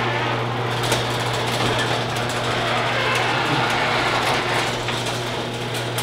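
Electric garage door opener running steadily as it lowers a sectional garage door to close it, with a constant low hum under the noise of the moving door.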